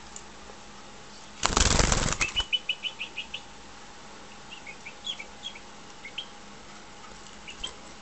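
A caged goldfinch flutters its wings for about a second, then gives a quick run of short, high chirps, followed by a few scattered single call notes.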